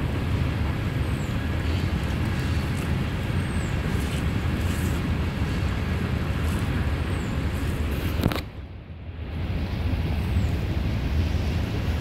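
Steady outdoor background rumble, heaviest in the low end, with a thin high downward chirp every second or two. About eight seconds in there is a sharp click, and the sound drops out for about a second before the rumble returns.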